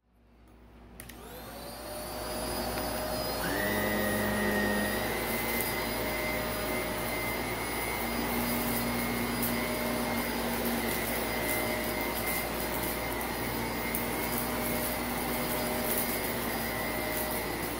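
Shark Navigator upright vacuum cleaner switching on, its motor whine rising in pitch and getting louder over the first few seconds, then running steadily as it is pushed across a shag rug. Light crackling of grit being sucked up comes through at times.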